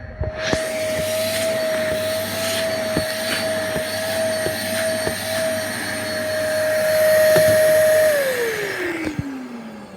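Karcher WD 3 P wet/dry vacuum running with a steady high whine, with scattered sharp clicks and knocks. About eight seconds in it is switched off and the motor winds down, its whine falling steadily in pitch.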